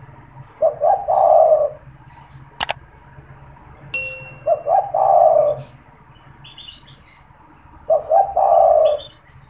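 Spotted dove (tekukur) cooing: three calls, each a couple of short notes running into a longer coo. A sharp click sounds between the first and second calls, and a brief metallic ding just before the second.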